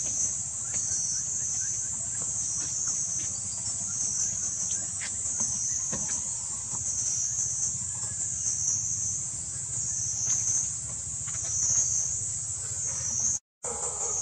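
Forest insects buzzing steadily at a high pitch, the chorus swelling and fading about once a second, with a few faint clicks and rustles; the sound cuts out for a moment near the end.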